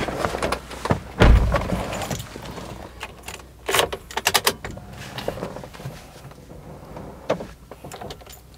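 Mazda 2 car door shutting with a heavy thump about a second in, followed by a run of rattling clicks near the middle and a single click near the end, as keys and cabin fittings are handled before the engine is started.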